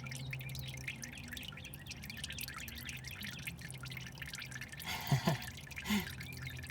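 Thin, watery old engine oil draining from a car's oil pan into a drain pan, a steady patter of pouring and dripping. Two brief louder sounds come about five and six seconds in.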